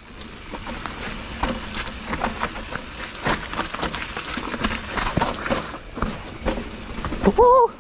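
Mountain bike rolling fast down a wet dirt trail: tyres on mud and roots with a steady rush, the chain and frame rattling and knocking over the bumps in a continuous clatter. A short pitched sound cuts in near the end.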